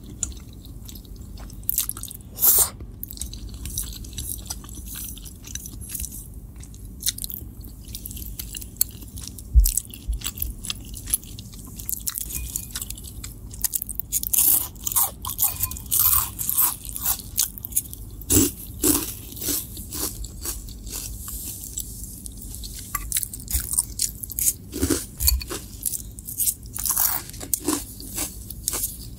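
Mouth sounds of eating: chewing a mouthful of spaghetti carbonara, then from about halfway in, crisp crunching of cheese-coated corn puff snacks, many quick crackles close together.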